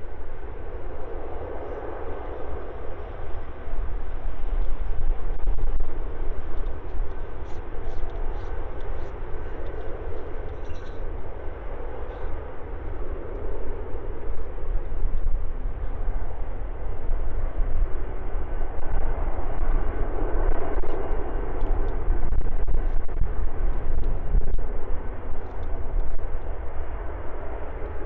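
Antonov An-124's four turbofan engines roaring at takeoff power, the noise swelling and easing. Heavy wind buffets the microphone throughout, with a strong low rumble and distortion.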